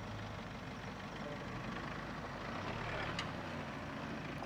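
Isuzu D-Max 4x4 pickup's engine running steadily at low revs, with a short click about three seconds in.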